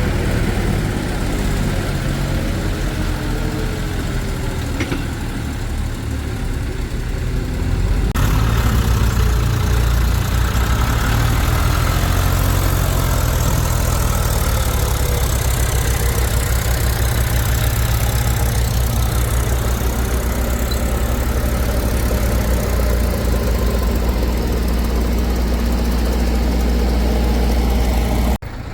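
Heavy machinery diesel engine running steadily, with a deep low drone; the sound changes abruptly about eight seconds in and cuts out briefly just before the end.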